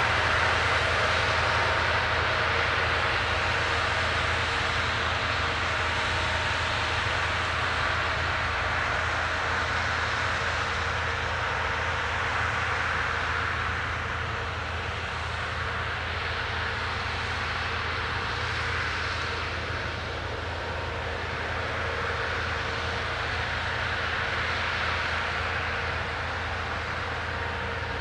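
New Holland combine harvester running steadily as it harvests wheat: a constant engine hum under a broad, even machine noise, easing slightly about halfway through.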